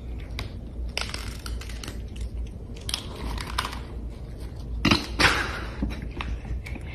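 A cat crunching dry kibble from a bowl: irregular crunches, with two louder sounds about five seconds in, over a steady low hum.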